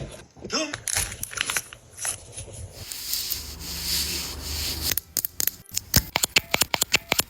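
Close-miked ASMR handling sounds of skincare products: irregular taps and clicks, then a steady hiss of rubbing or spraying for about two seconds, then a quick run of sharp taps near the end.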